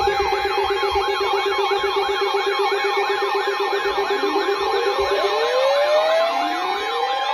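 Several electronic siren tones layered together. A fast yelp sweeps up and down a few times a second over steady held tones, a pulsing lower tone cuts off about five seconds in, and slow rising wails start around four seconds in.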